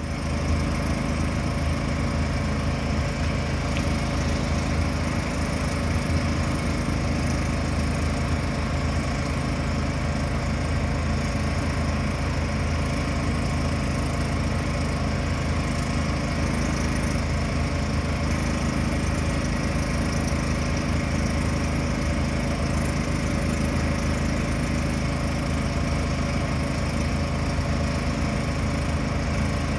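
An engine running steadily at a constant speed, without revving.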